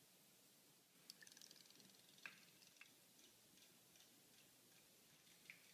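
Near silence, with a few faint ticks and clicks between about one and three seconds in.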